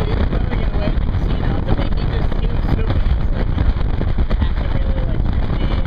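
Wind buffeting the microphone and the rush of a banana boat ride being towed at speed: a loud, steady, deep rushing noise with no letup.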